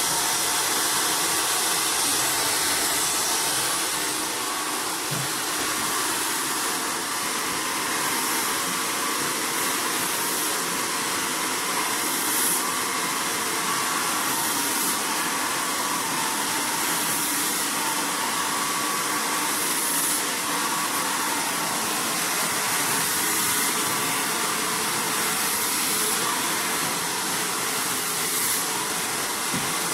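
Handheld hair dryer blowing steadily on short, keratin-treated hair during blow-drying, its hiss brightening briefly every few seconds as it is moved over the hair and brush.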